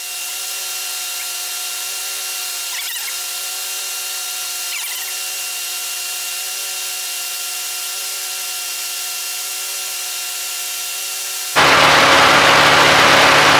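A running Jeep TJ engine heard through a mechanic's stethoscope held on a fuel injector: a steady, muffled hum with the bass cut away. Near the end the full, louder engine sound returns suddenly.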